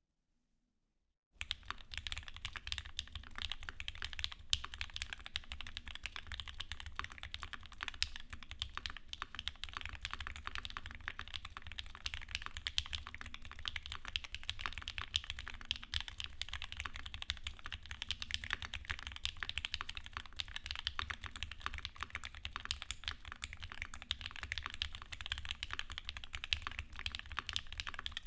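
Steady, fast typing on a Quantrik Kyuu mechanical keyboard with an aluminium case and brass plate, its Krytox-lubed, filmed Mauve linear switches under GMK Modern Dolch keycaps, starting a little over a second in. The keystrokes run densely, with a low thock under each one.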